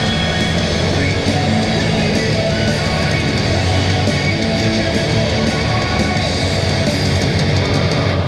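Heavy metal music with distorted guitar and a steady, fast beat, cutting off at the end.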